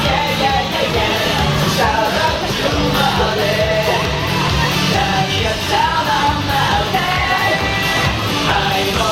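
Rock music with singing over a steady, loud band backing.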